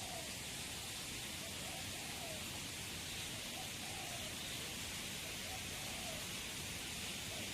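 A steady hiss with a bird's faint, short calls repeating every second or two.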